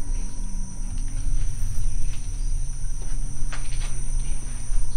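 Night chorus of crickets trilling steadily at a high pitch over a low steady rumble, with a few faint clicks about three and a half seconds in.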